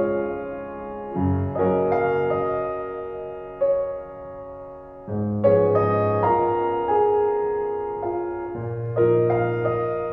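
Slow piano music: chords struck every second or two, each ringing and fading before the next.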